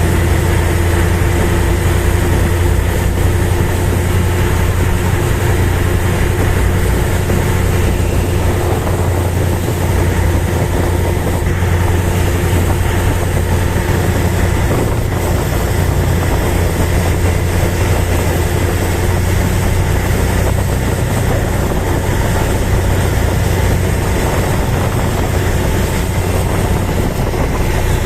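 Motor vessel's engine running with a steady low drone, under a constant rushing noise.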